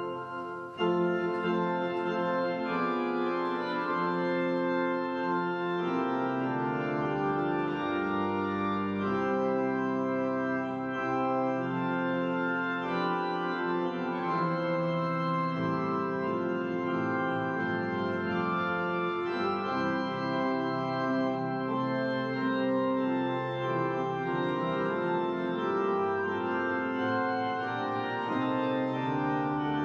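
Organ music in slow, held chords, coming back in at full level just under a second in after a brief dip.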